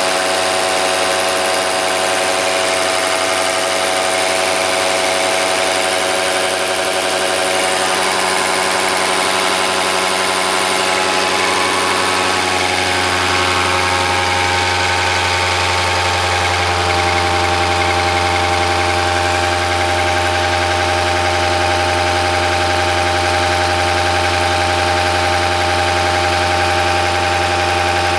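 Bosch H-series inline diesel injection pump running under load on a test bench, a steady machine hum with several whining tones. About halfway through the tones shift and the low hum grows louder as the pump takes more power from the bench drive.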